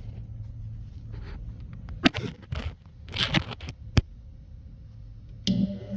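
A few short scraping strokes as a dirty aluminum piece is cleaned by hand for welding, then a sharp knock, with another knock near the end, over a steady low hum.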